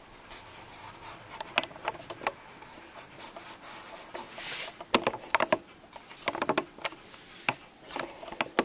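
Handling noise: irregular light knocks, clicks and rustles as things are picked up, moved and set down, busiest in the second half.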